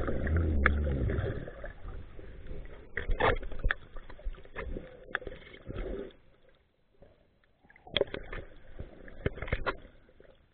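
Underwater sound through a waterproof camera: a low rush of water moving over it for the first couple of seconds, then scattered sharp clicks and knocks.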